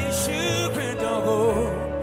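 A live band playing a slow worship song, with a singing voice holding notes with a wavering vibrato over steady keyboard and bass notes.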